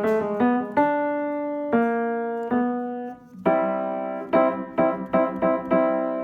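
Ritmüller RS122 upright piano being played: a short phrase of notes and chords, then a run of repeated chords from about halfway through. Its tone is mellow, from hammers with compact Swiss-German underfelted felts.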